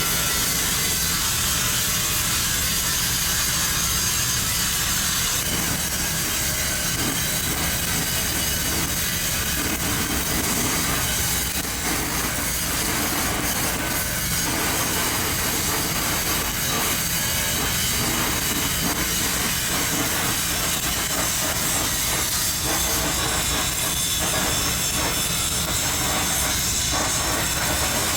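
Flux-cored arc welding a capping pass on a pipe: a steady, loud crackling hiss from the arc that carries on without a break.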